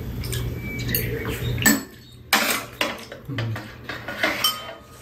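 Metal chopsticks and spoons clinking against ceramic bowls and a metal tray during a meal, with several sharp clinks in the second half.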